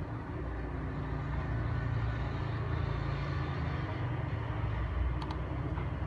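Steady low background rumble, with a couple of faint clicks about five seconds in.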